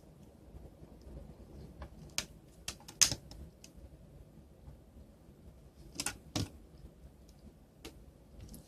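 Scattered light clicks and taps of small plastic and metal parts of a Palm Treo 755p smartphone being handled during disassembly, the sharpest about three seconds in and a pair around six seconds in.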